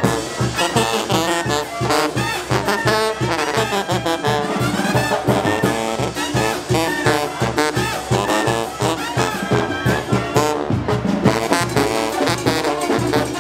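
A live Mexican brass band (banda) playing, with sousaphones carrying a steady bass beat of about three notes a second under brass and reed melody lines.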